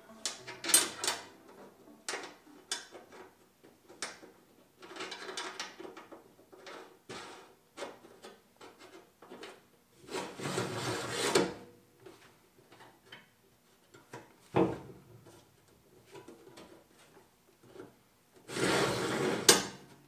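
Drift breaker on a snowblower's auger housing being worked by hand: several short scraping, rubbing slides, the longest about ten seconds in and near the end, with one sharp knock between them.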